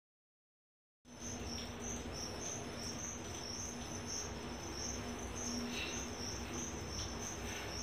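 A cricket chirping in a steady, evenly pulsing high trill over faint room noise and a low hum, starting about a second in after a moment of silence.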